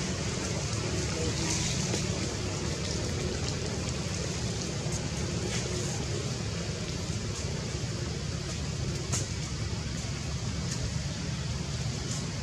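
Steady outdoor noise of light rain, with a low rumble underneath and a few faint ticks like drops falling.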